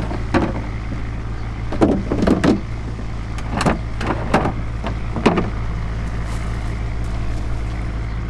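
Plastic fish crates knocking and clattering as they are lifted and shifted on a boat's deck, with several sharp knocks in the first half. Underneath is the steady low hum of a running engine.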